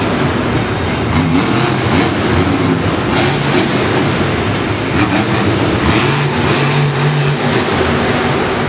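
Monster truck's supercharged V8 engine revving hard and easing off, its pitch rising and falling as the truck drives and jumps.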